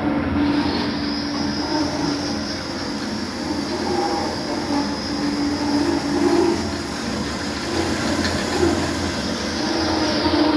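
Metal-cutting band saw running through a cut in semi-automatic mode: a steady machine drone with the metallic squeal of the blade in the stock. A higher hiss comes in about half a second in and fades just before the end.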